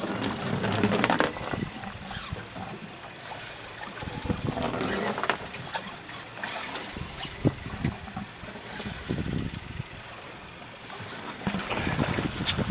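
Sea water washing and slapping against a small boat's hull in choppy water, swelling and easing, with a few sharp clicks and knocks scattered through.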